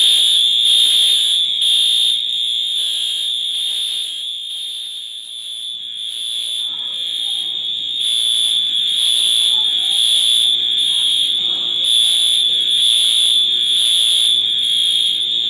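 Fire alarm horn sounding continuously in a building during an alarm test: a loud, high-pitched electronic tone that dips in level around the middle and comes back up.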